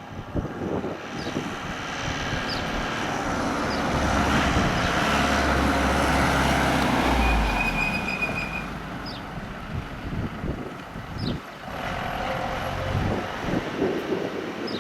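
A fire brigade truck drives past, its engine and tyre noise swelling to a peak midway and fading away.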